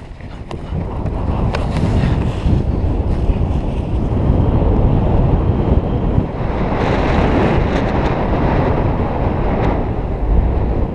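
Wind blowing across a paraglider pilot's camera microphone. It builds over the first couple of seconds as the launch run turns into flight, then holds as a steady loud rush of airflow.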